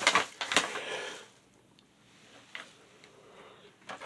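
A thin plastic carrier bag rustling and crinkling as packaging is stuffed into it, loudest in the first second, then a few light clicks and taps.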